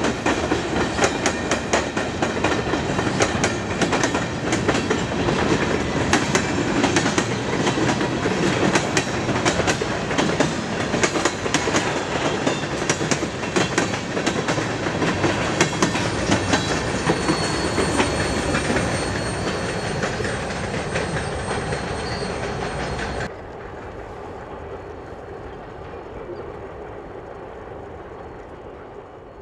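Freight train of covered hoppers and tank cars passing close by: steel wheels clicking over the rail joints amid a steady rumble and rattle of the cars, with a faint high whine from about halfway. About 23 seconds in it drops suddenly to a quieter, more distant train rumble that fades away near the end.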